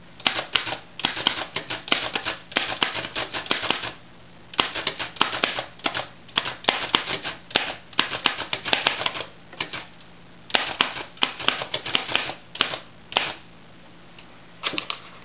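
Underwood No. 5 manual typewriter being typed on: fast runs of typebar strikes against the platen, broken by a few short pauses. It is typing a test sentence that uses every letter, to check that no key is off or broken.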